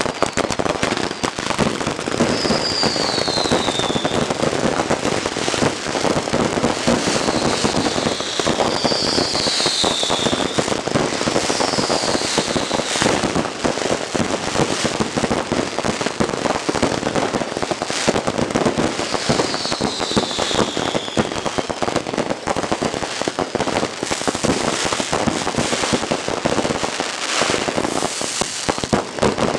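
Consumer fireworks going off in a continuous barrage of rapid pops and crackles, with four falling whistles among them.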